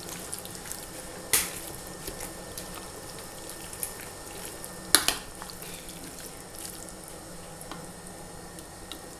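Metal spoon stirring chopped zucchini and carrot in a pot, with soft wet sounds of the vegetables in their juice and two sharp clinks of the spoon against the pot, about a second in and about five seconds in.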